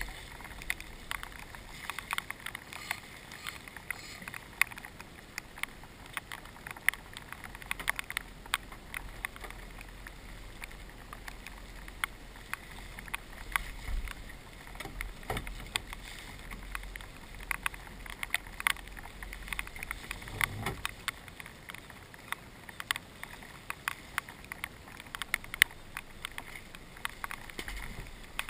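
Water lapping and slapping against the hull of a small aluminium boat, with many irregular sharp ticks and taps over a steady low hiss, and a single low thump about two-thirds of the way through.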